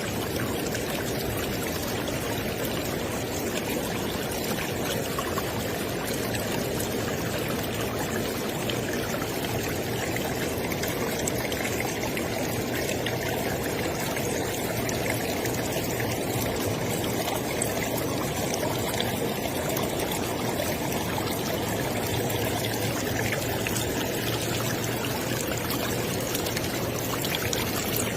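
River water flowing steadily, an even rushing and splashing that holds at one level throughout.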